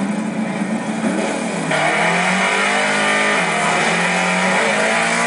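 Drag-strip cars' engines revving hard while their tyres spin on the track, getting suddenly louder and brighter about two seconds in.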